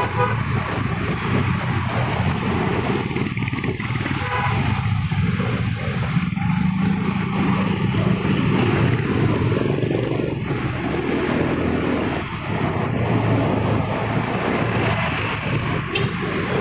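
A road vehicle running steadily, its engine hum mixed with wind and road noise.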